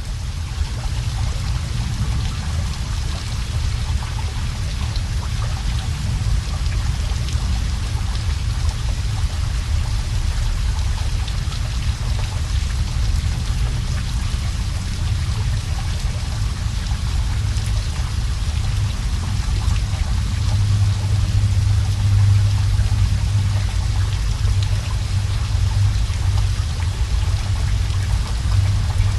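Water running steadily and splashing, with a strong low rumble underneath. A louder low, steady hum joins about two-thirds of the way in.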